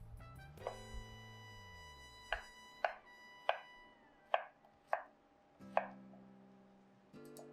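Knife chopping food on a cutting board: about eight sharp, unevenly spaced cuts, over soft background music.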